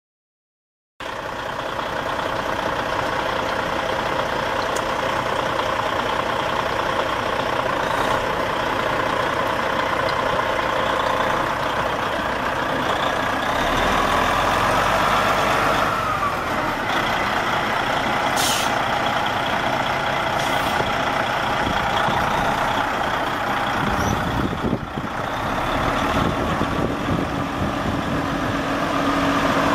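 Detroit Diesel Series 60 12.7-litre inline-six turbo diesel of a Freightliner Century semi tractor running as the truck is driven slowly. Midway a whine rises and falls as the engine pulls, and a few seconds later there is a short hiss of air.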